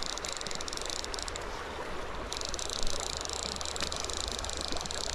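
Creek water running steadily over a riffle, with a high-pitched chorus of calling frogs above it that drops out briefly about a second and a half in.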